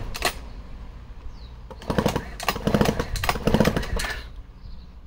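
Two-stroke engine of a vintage Echo CS-60S chainsaw being pull-started: about three hard pulls on the recoil starter a couple of seconds in, the engine turning over without catching.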